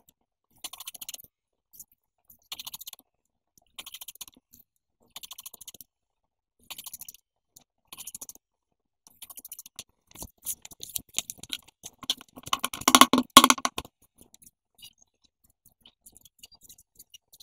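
Scissors snipping through a thick stack of paper sheets, a short crisp crunch about once a second. About two-thirds in comes a louder stretch of paper crackling and rustling as the stack is handled, then a few faint ticks.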